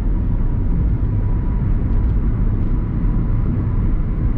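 Car driving on the road: a steady, low road-and-engine rumble.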